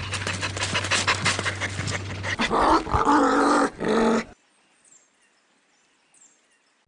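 Dog panting in quick breaths over a low steady hum, then about two seconds of pitched dog vocalising that cuts off suddenly about four seconds in, leaving near silence.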